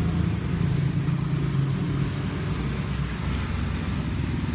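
Steady low engine rumble, with a faint steady high whine.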